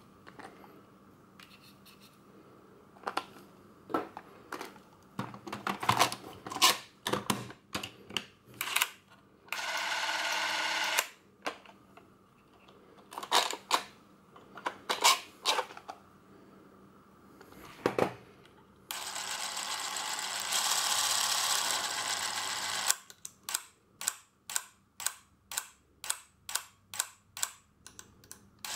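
Plastic and metal clicks and knocks from a Super 8 film cartridge, batteries and a Bauer C 4 Super camera being handled and its battery compartment opened. Two stretches of steady noise break in, one short and one of a few seconds, and near the end comes a run of evenly spaced clicks about two to three a second.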